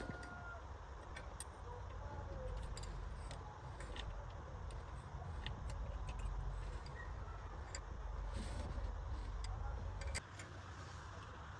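Scattered light clicks and taps over a low steady hum; the hum cuts off about ten seconds in.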